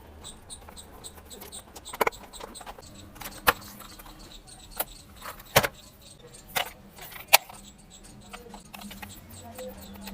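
A series of sharp hard-plastic clicks and knocks as a toy RC stunt car is handled, about six loud ones a second or so apart, with lighter rattling between.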